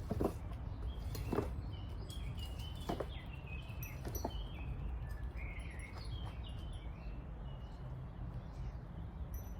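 Small birds chirping and twittering, with four short soft knocks in the first few seconds over a steady low rumble.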